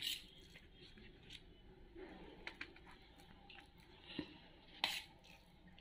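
Steel spoon scraping and tapping against a stainless steel plate while a soft dough is scooped up. There are a few sharp metallic clicks, the loudest about five seconds in.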